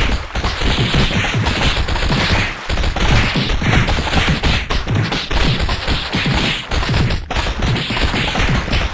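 A loud, rapid string of sneezes, one burst after another with hardly a pause between them.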